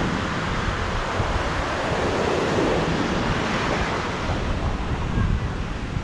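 Ocean surf washing onto a sandy beach, a steady rush of noise, with wind buffeting the microphone.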